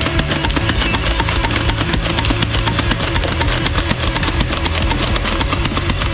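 Background heavy-metal music with fast, driving drums and distorted guitar.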